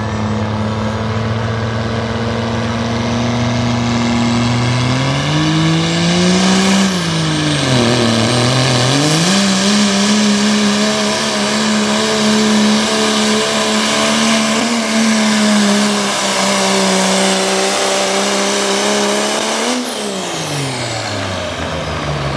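Dodge Ram pickup's Cummins turbo-diesel under full throttle pulling a weight sled. The revs climb about five seconds in, dip briefly near eight seconds, then hold high and steady through the pull before dropping away near the end as the throttle is released.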